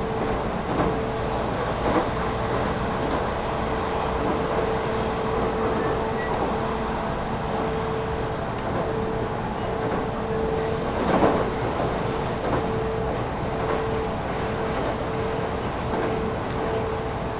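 Interior running sound of a JR Central 313 series 0-subseries electric train, recorded in its motor car KuMoHa 313-4, cruising steadily. A steady tone pulses on and off over the running noise, with a few clicks and one louder knock about eleven seconds in.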